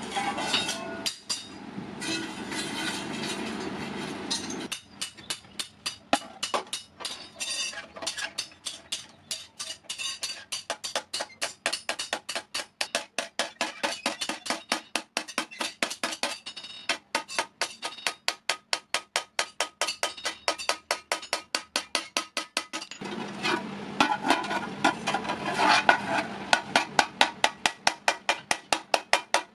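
Hand hammer striking the rim of an iron thali plate on an anvil: a steady run of metallic blows, several a second.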